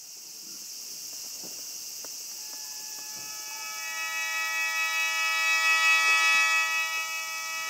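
Music: a sustained chord of held, wind-like tones whose notes enter one at a time from about two seconds in and swell, over a steady high hiss.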